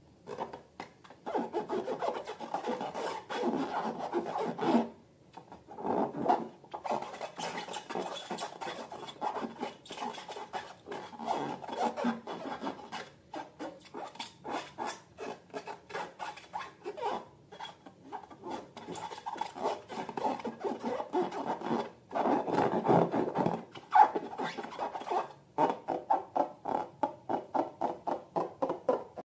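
Slime being worked by hand, a run of sticky crackling and clicking squishes and rubs broken by short pauses. Near the end the squishes fall into an even rhythm of about three a second.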